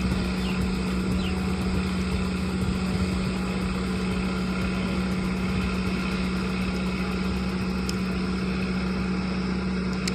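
An engine running steadily at a constant speed with a low, unchanging hum, typical of diesel construction machinery.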